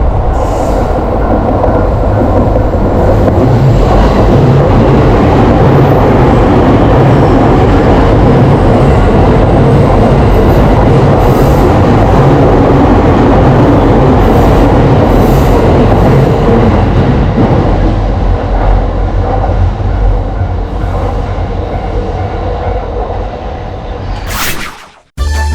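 Train running, loud and steady, then fading over the last several seconds and cutting off just before the end.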